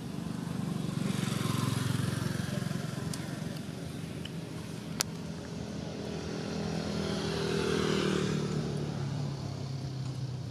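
Two motor vehicles pass one after another, the engine sound swelling and fading each time. The second has an engine note that falls as it goes by. A single sharp click comes about halfway.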